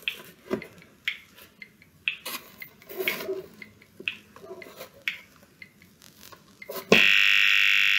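Light clicks and small knocks about once a second, then about seven seconds in a loud, steady, high-pitched electronic buzzer tone comes on suddenly and keeps sounding.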